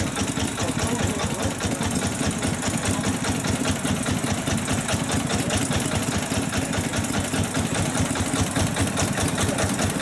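Small vintage stationary engine running steadily at idle, a rapid, even chugging beat.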